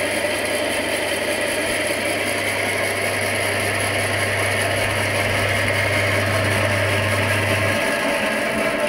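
Electric woodworking band saw running with no load, its motor, wheels and blade turning with a steady mechanical sound. A low hum in it drops out near the end.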